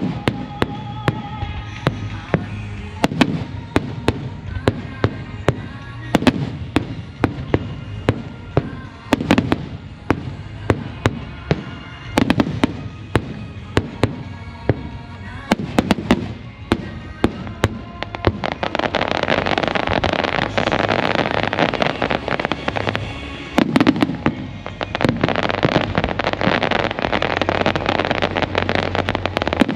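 Aerial fireworks bursting one after another, about one sharp bang a second, with music playing along. About two-thirds of the way in, they become a dense crackling barrage.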